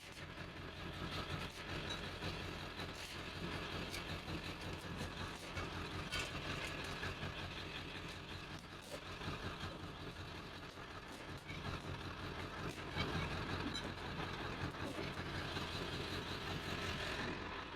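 A steady low engine-like hum, with scattered light clicks and knocks over it.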